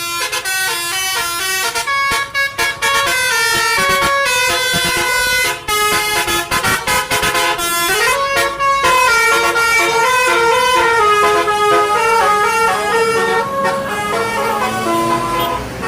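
Basuri telolet horn, a multi-tone bus horn, playing a tune: a quick run of loud, stepped notes, with a few brief breaks in the first six seconds.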